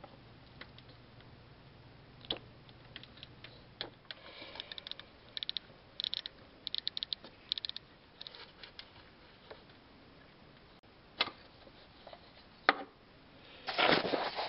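Socket ratchet clicking in short quick runs as a small 10 mm bolt is backed out, with a few separate sharp metal clicks. A louder rustle of handling comes near the end.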